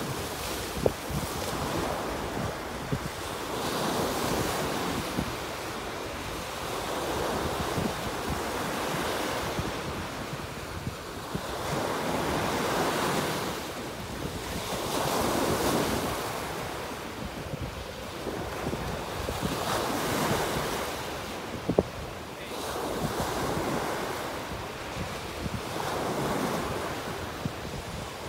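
Ocean waves breaking against shoreline rocks and washing up the sand, the surf swelling and ebbing every few seconds, with wind buffeting the microphone. Two brief sharp knocks stand out, about a second in and again about three quarters of the way through.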